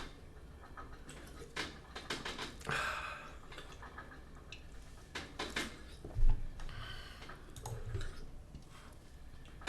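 Quiet clicks and handling noises, with one louder dull thump about six seconds in.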